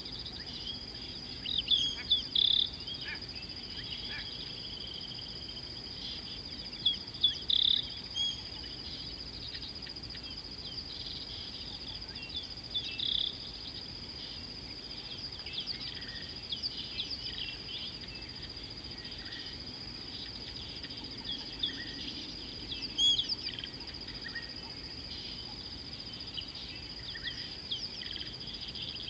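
Small birds chirping and twittering in short, bright calls that come in clusters, loudest about two seconds in, around seven seconds in and around twenty-three seconds in. Under them runs a steady, unbroken high-pitched drone.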